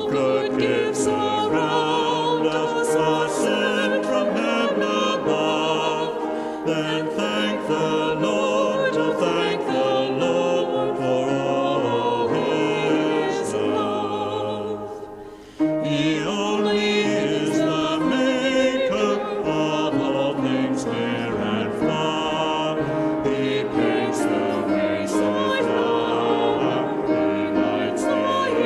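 Choral singing, the voices sung with a wavering vibrato. The music fades and breaks off about fifteen seconds in, then starts again.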